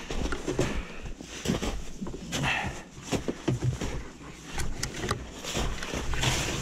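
Snow crunching and scraping with irregular knocks and rattles as a vintage Arctic Cat snowmobile is hauled by hand out of deep snow by its ski and bumper.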